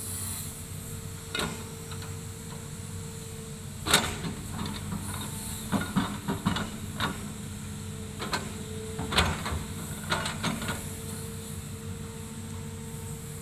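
Hydraulic excavator's diesel engine running steadily with a constant whine, broken by a series of sharp knocks and clanks, the loudest about four and nine seconds in.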